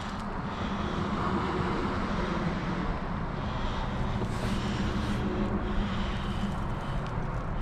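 A steady low mechanical drone with an even hum.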